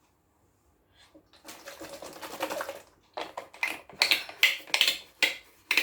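A person chugging the last of a bottle of apple juice: a noisy stretch of drinking, then a quick run of sharp gulps, about four a second.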